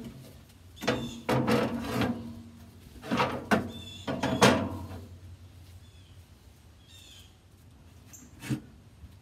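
Steel cooking grates of a pellet grill clanking and rattling against the grill body as they are lifted out. Several clusters of ringing clanks come in the first five seconds, then a single knock near the end.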